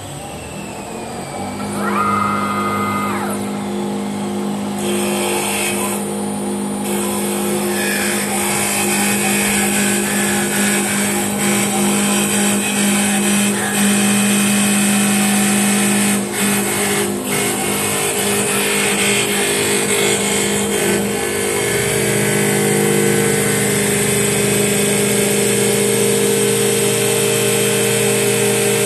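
CNC wood turning lathe running up to speed, then cutting a spinning wooden blank: a steady motor hum with a loud hiss of the cutters shaving wood into chips.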